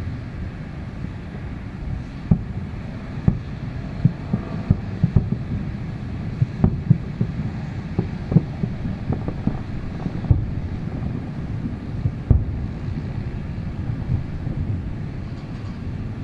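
Distant aerial fireworks booming: a run of short, deep thumps, quickest in the middle and thinning out near the end, over a steady low rumble of wind on the microphone.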